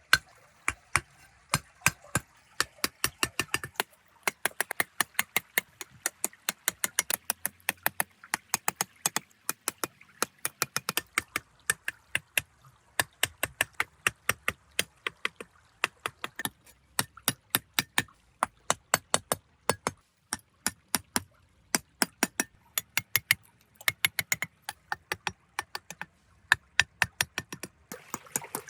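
Rapid, irregular sharp clicks and taps of small hard objects, several a second, with a few short pauses.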